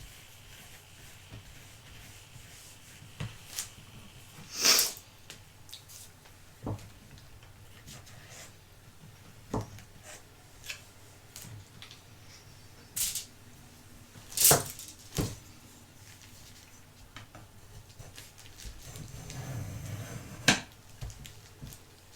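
Close-up handling sounds of small objects: scattered light taps and clicks, with three louder sharp knocks about five, fourteen and twenty seconds in, and a soft rustle just before the last one.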